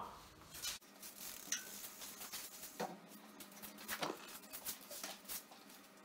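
Faint scattered clicks and light knocks of a road bike being handled and set up against a wall, with a couple of slightly louder knocks around three and four seconds in.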